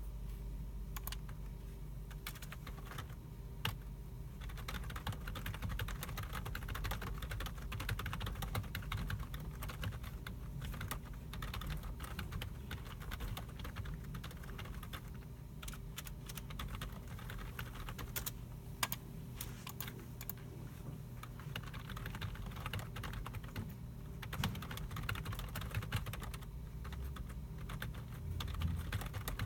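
Several computer keyboards being typed on with irregular clicking, mixed with mouse clicks, over a steady low hum of the room's computers.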